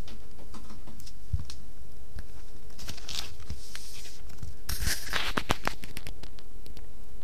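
Rustling and scattered light clicks and taps over a steady low hum, with two louder rustles about three and five seconds in.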